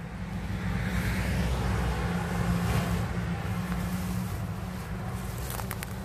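A car passing on a nearby road, its tyre and engine noise swelling and slowly fading over a steady low rumble. Near the end, a run of short crackles and rustles begins.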